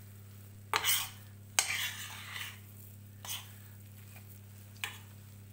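Metal spoon scraping and stirring crumbly kete filling of flour roasting in butter in a stainless steel pan, in four separate strokes, the second the longest.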